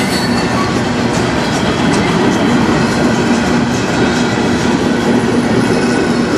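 Freight cars of a mixed manifest train (covered hoppers, boxcars, tank cars) rolling past close by. Steady noise of steel wheels on the rails, with scattered clicks and a steady low hum.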